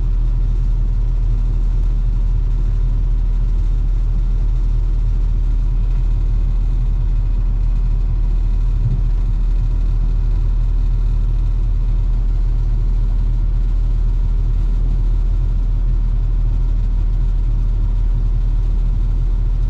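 Feed truck's engine idling steadily, heard from inside the cab with the truck held on the brake.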